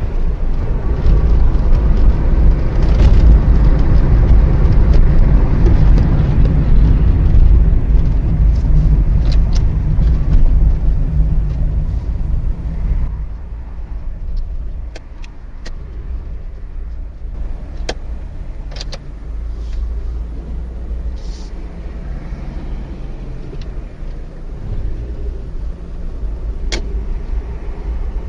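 Car driving in traffic, with engine and road noise picked up by a dashcam: a heavy low rumble, louder in the first half and dropping off about halfway through, with a few sharp clicks later on.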